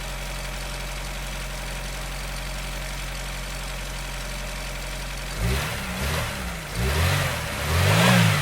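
Nissan Figaro's 1.0-litre turbocharged four-cylinder engine idling steadily. About five seconds in it is revved three times in quick succession, the pitch rising and falling each time, and the last rev is the loudest.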